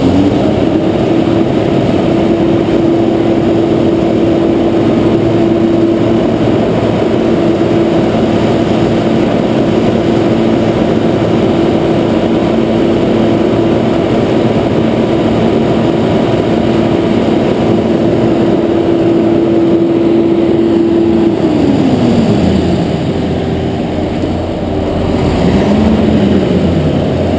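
Concrete mixer truck's diesel engine held at high revs at a steady pitch, powering the drum as it discharges concrete. The revs drop back toward idle about 22 seconds in, with one short rev near the end.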